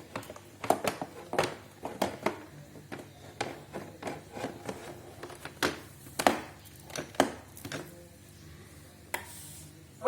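Irregular plastic clicks and knocks as a robot vacuum's dust container is handled and fitted into the machine.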